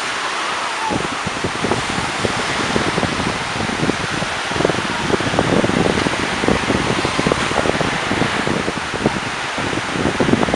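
Small waves washing steadily onto a sandy beach, with irregular wind rumble buffeting the microphone.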